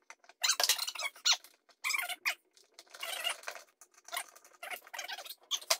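Irregular squeaking and scraping in short bursts as parts are worked into place by hand inside a plywood RC boat hull.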